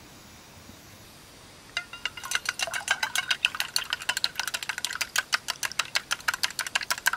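Raw egg being beaten with wooden chopsticks in a stainless-steel mug: rapid clicking of the chopsticks against the metal, several strokes a second, starting about two seconds in.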